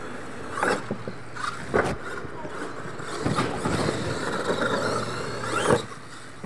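Radio-controlled monster truck driving on loose dirt: motor running and tyres scrabbling through the dirt, with sharp knocks as it bounces, about a second in and near two seconds. The loudest thump comes just before the end, as it goes airborne off a ramp.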